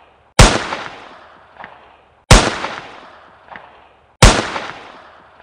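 A looped bang sound effect repeated three times, about two seconds apart. Each bang is sharp and loud, fades away over a second or so, and has a fainter second hit in its tail.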